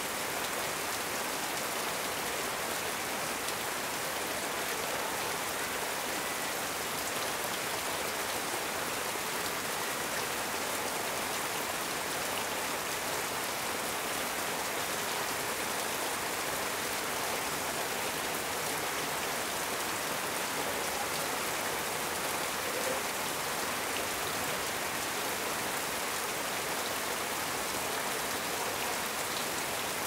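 Heavy rain falling steadily on corrugated metal roofing, an even, unbroken hiss with no thunder.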